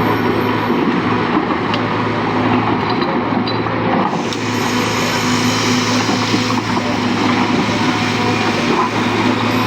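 Heavy diesel engine of earthmoving equipment running steadily at constant speed, with a few faint clicks or knocks in the first few seconds.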